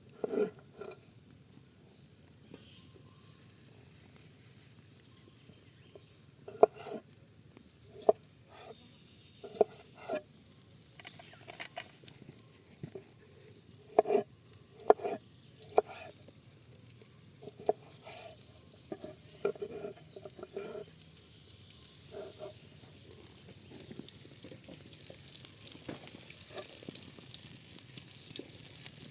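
Scattered knocks and clatters of food and utensils being handled while cooking. From about three-quarters of the way through, a sizzle rises and grows as food starts frying in a hot pan.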